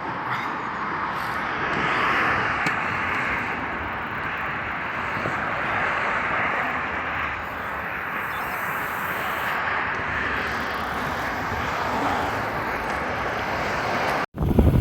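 Steady rushing wind and road noise from riding a road bike along the road, with no distinct events.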